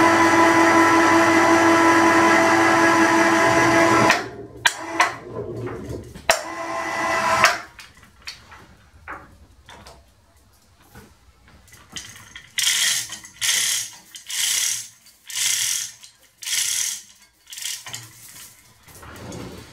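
Electric chain hoist motor running steadily with a pitched whine for about four seconds, then a second shorter run around six seconds in. Later come about five short bursts of noise, roughly one a second.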